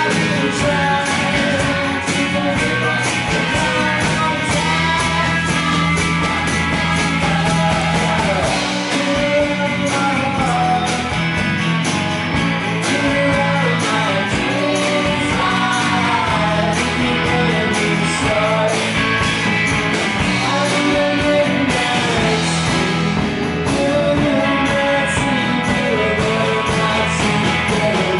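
Live country rock-and-roll band playing, with a man singing lead over acoustic guitar, electric guitar, drums and keyboard.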